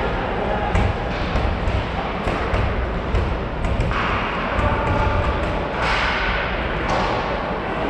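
Ice hockey play echoing in an arena: sticks and pucks clacking and thudding, with voices calling out about four and six seconds in.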